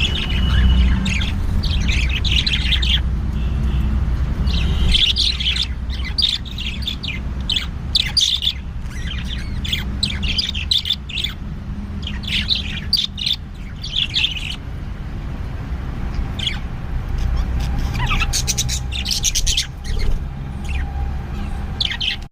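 Pet budgies chirping in clusters of short, rapid high chirps, with a brief lull partway through, over a low steady rumble.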